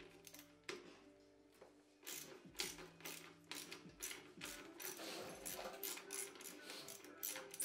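Ratchet wrench clicking as 10 mm bolts on a motorcycle's rear brake master cylinder are loosened. It is a run of short, quiet metallic clicks that starts about two seconds in.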